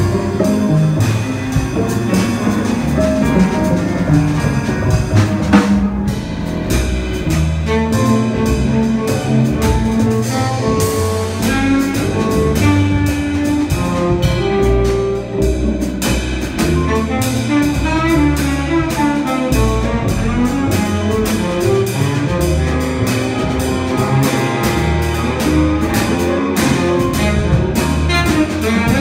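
Live jazz quintet playing: a baritone saxophone, guitar, piano, double bass and drum kit with cymbals, all sounding together in a steady groove.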